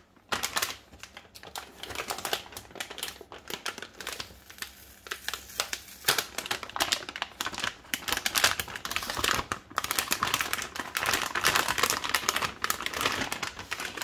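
A metallic anti-static plastic bag crinkling and crackling as it is handled and a graphics card is slid out of it: a dense run of sharp crackles that grows busier in the second half.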